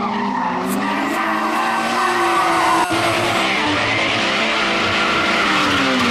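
BMW E30 rally car's engine revving hard, its pitch rising and falling, with tyres skidding as the car slides through a turn. There is a momentary dropout just before three seconds in.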